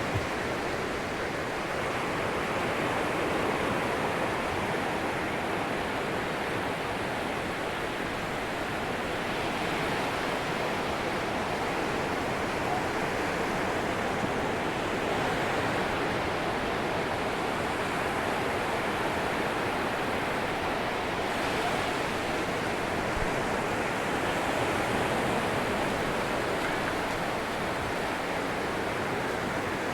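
Atlantic surf breaking and washing on a sandy beach: a steady rush of waves, swelling and easing gently.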